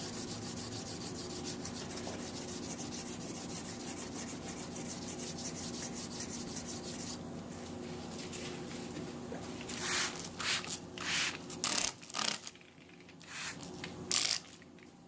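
Hand wet sanding of the clear coat on a 1958 MGA's body with 600-grit paper: quick, steady back-and-forth strokes, easing off about seven seconds in, then from about ten seconds in a handful of separate, louder strokes with pauses between.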